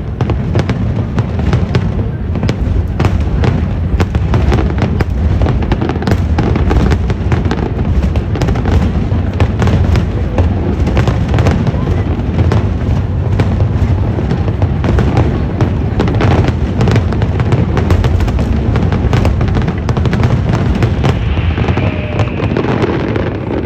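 Aerial fireworks going off in a dense, continuous barrage: rapid sharp cracks and crackling over a steady low booming rumble.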